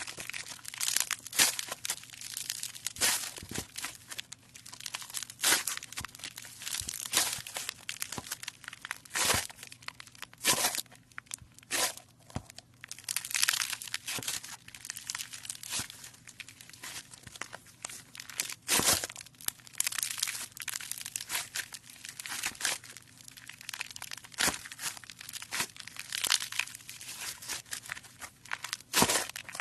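Slime being squeezed, stretched and pressed by hand close to the microphone: a dense, irregular run of crackling and popping clicks.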